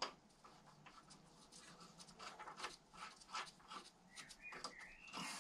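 Faint clicks and light scraping from an engine mounting bolt and washer being fitted by hand under a mower deck. There is a sharp click at the start and a short rising whistle about four seconds in.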